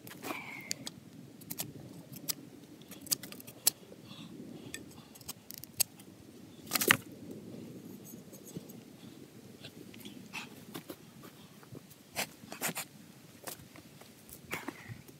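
Scattered clicks, taps and light scrapes of a big knife and pieces of split wood being handled, with one louder knock about seven seconds in.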